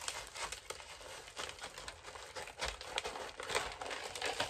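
Thin, flexible plastic nursery pot crinkling and crackling as it is squeezed and flexed, with soil and small stones shifting inside, loosening the root ball to slide the plant out. Irregular small clicks and crackles.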